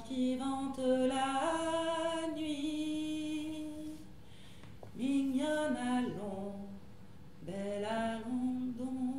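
A woman singing alone, unaccompanied, in slow phrases of long-held notes. There are three phrases, the first the longest, with short breaks between them.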